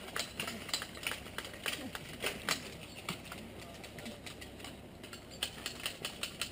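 Irregular sharp clicks and snaps, a few a second, thinning out after about three seconds, over faint distant voices.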